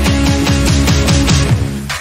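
Electronic background music with deep bass and a fast, steady drum beat, about five hits a second, ending on one strong hit.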